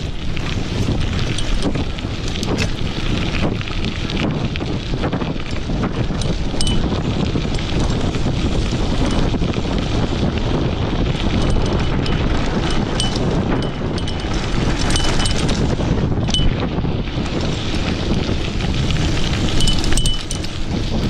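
Wind buffeting the microphone over the rumble of a mountain bike's tyres on a loose dirt and gravel descent, with frequent rattles and knocks from the bike as it rides over the rough ground. Short faint high squeaks come through now and then.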